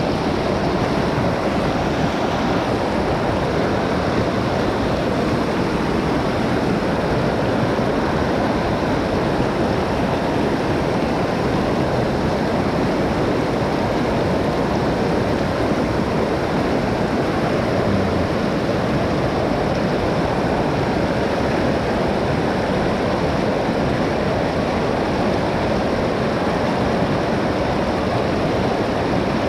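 Mountain stream water rushing, a loud, steady noise with no break.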